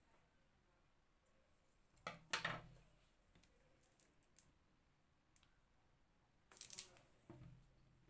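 Handling sounds of a plastic glue bottle on a tabletop: a few separate knocks and taps as it is picked up, squeezed and set down. Two louder knocks come about two seconds in and near the end, with lighter clicks between.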